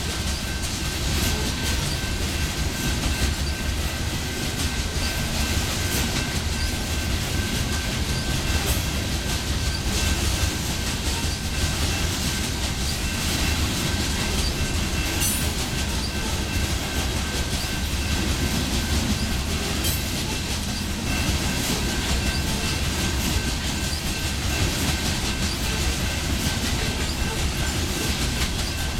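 Loaded coal hopper cars rolling steadily past: a continuous rumble with clickety-clack of wheels over rail joints, and a thin steady high wheel squeal.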